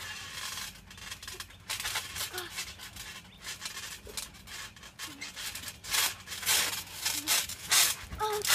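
Rubbing and rustling of clothing and bodies as a person struggles to break out of a wrestling hold, coming in irregular bursts that grow louder in the last few seconds.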